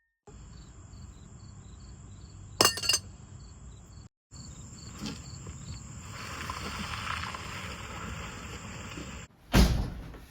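Night ambience of crickets chirping over a steady hiss, with a sharp knock about two and a half seconds in and a heavy thud near the end.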